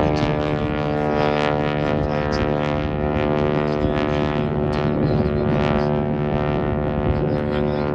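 Piston engine and propeller of a warbird in flight overhead, a steady drone.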